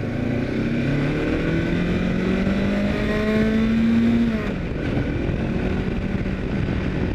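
Honda motorcycle engine, heard from a mic inside the rider's helmet, climbing in revs for about four seconds, then dropping back and running at a steady pitch, over a low rush of wind noise.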